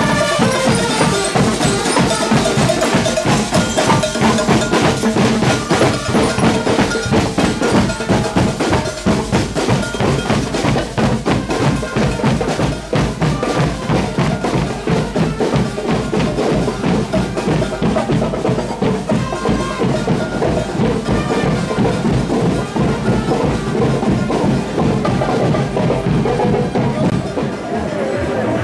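A school marching band's snare and bass drums play a steady marching beat, with a ringing pitched melody over the drumming.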